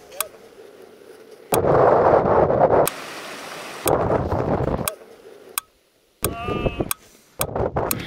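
Wind buffeting the camera microphone in two loud, rumbling gusts, about a second and a half in and again about four seconds in, each cut off abruptly at an edit.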